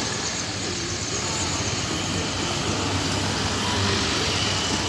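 Diesel tractor engines running steadily as a line of farm tractors drives past, with a constant road noise.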